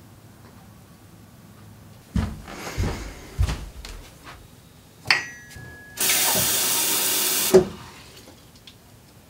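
Bathroom sink tap turned on and run for about a second and a half, water pouring into a plastic cup, then shut off with a knock. Before it, a few knocks from the cup being handled and a brief high ringing tone.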